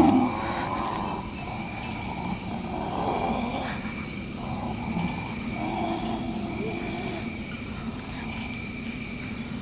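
Night jungle ambience: a steady chorus of insects chirping, with wavering animal calls beneath it. A short, loud sound falling in pitch opens it.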